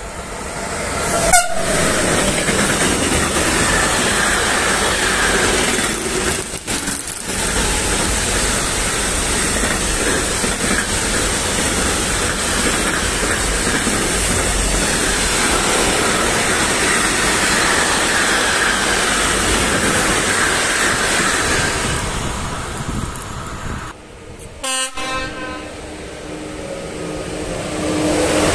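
Electric locomotive-hauled intermodal freight train running through a station: a brief horn note about a second in, then the long steady noise of wagon wheels on the rails, which fades about 22 seconds in. Near the end, a steady hum from a ČD class 362 electric locomotive.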